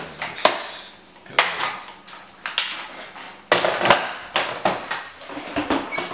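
Hard plastic parts of a Nerf Rhino-Fire blaster clicking and knocking together and against a stone countertop as it is assembled by hand, in irregular clusters of sharp clicks.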